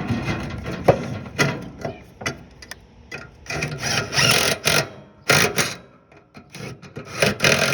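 Ratchet wrench clicking in several short bursts, tightening the muffler bolts on a riding-mower engine.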